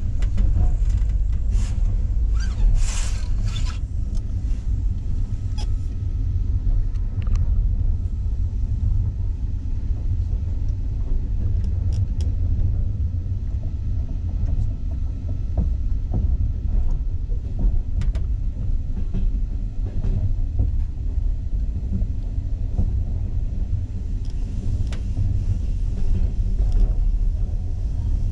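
Passenger train coach running along the track, heard from inside the carriage: a steady low rumble of wheels on rails, with scattered clicks and knocks, and a brief louder hiss about three seconds in.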